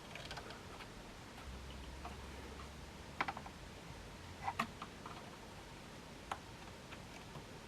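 Faint, scattered clicks and light taps of a flathead screwdriver prying small plastic parts out of a synth module's front panel, with the sharpest clicks about three seconds in, at four and a half seconds, and past six seconds.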